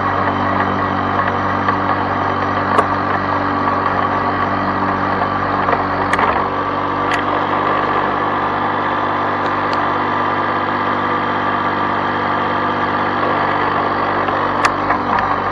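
Two-stroke Lawn-Boy push-mower engine running steadily while mowing grass, with a few sharp clicks over it.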